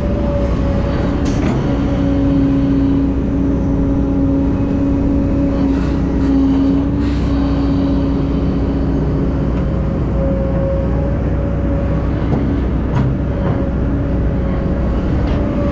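Heavy diesel earthmoving machinery (excavators and dump trucks) running steadily, with a strong steady whine over the engine noise and a few scattered sharp clanks.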